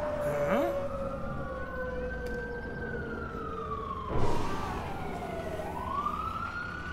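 Siren wailing, slowly rising and falling in pitch, with a lower tone sliding down beneath it during the first few seconds. A brief loud burst of noise cuts in about four seconds in.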